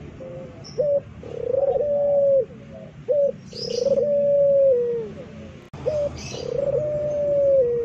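Puter pelung (domestic ringneck dove) cooing: a short rising note, then one long drawn-out coo that sags in pitch at its end, repeated three times. Faint high chirps come in between the coos.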